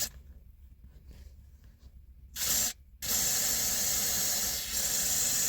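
Aerosol can of Teflon spray lubricant. It gives one short spray burst about halfway through, then a long continuous hiss of spray, applied to the squeaking rod of a seat suspension to cure the squeak.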